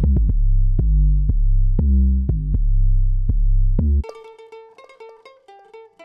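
Instrumental music: loud low notes with sharp attacks in a quick rhythm, then about four seconds in the low part cuts off abruptly and quieter, higher plucked string notes carry on.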